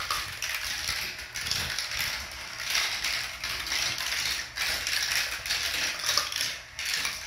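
Motorised chain elevator of a plastic Marble Genius marble run, running with a continuous mechanical rattle, mixed with marbles rolling and clicking along the plastic track.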